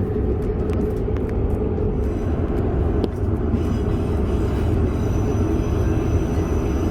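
London Underground train running: a steady, loud rumble with rail noise and a few faint clicks in the first few seconds.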